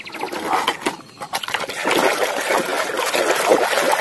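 Water sloshing and splashing as a hand swishes a plastic toy excavator around in a basin of muddy water; the splashing starts about a second and a half in, after a few light plastic knocks.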